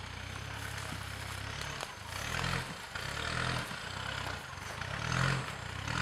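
Engine of a 4x4 pickup truck crawling up a rocky gully under load. It runs low and steady at first, then revs in short bursts about two seconds in, again midway, and near the end.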